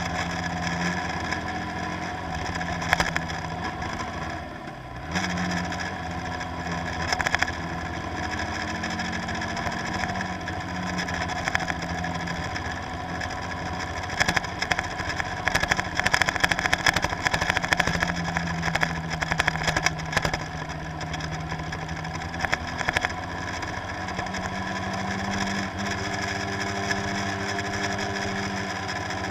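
Boat engine running steadily, its pitch drifting a little up and down, with a stretch of crackling noise over it about halfway through.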